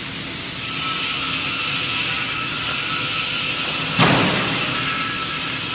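Steady machinery noise of a metal-fabrication factory hall, swelling slightly about half a second in. About four seconds in there is a single sharp click as a filter cartridge is snapped onto a half-face welding respirator.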